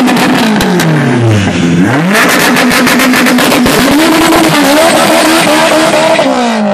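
Drag-racing car engines revving up and down at the starting line, then one car launching at full throttle about two seconds in, its engine climbing in pitch with a brief dip in between as it accelerates away, the note falling off near the end.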